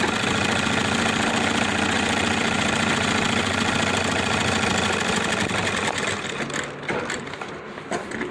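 Sewing machine running steadily, stitching a seam along a shirt cuff, then stopping about six seconds in, followed by a few light clicks.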